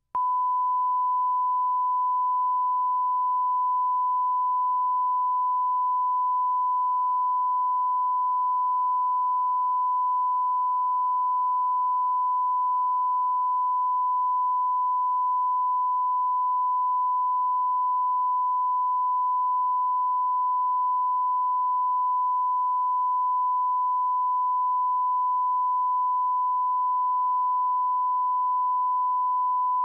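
Steady 1 kHz line-up tone, a single unbroken sine tone that starts abruptly. It is the reference tone recorded with colour bars at the head of a broadcast videotape, for setting audio levels.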